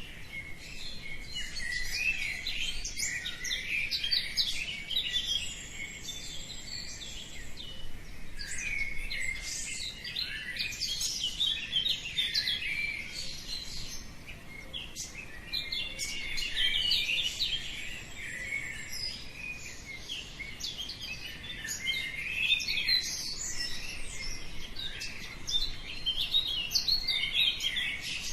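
Dawn chorus: many small birds chirping and singing at once, a dense, unbroken tangle of high chirps and trills.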